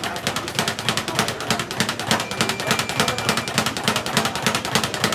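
Speed bag being punched in a fast, steady rhythm, rattling against its wooden rebound platform in a rapid, even string of knocks.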